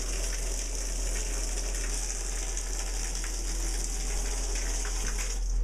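Water running steadily from a bathroom shower, a constant hiss that cuts off suddenly at the end.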